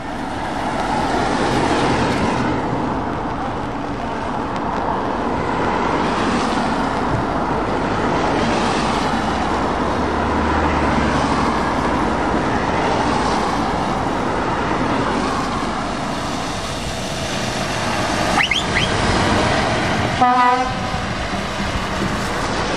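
Renault T truck driving past on a rain-soaked road, its engine running under a steady hiss of tyres on wet tarmac. A short air-horn blast sounds about twenty seconds in.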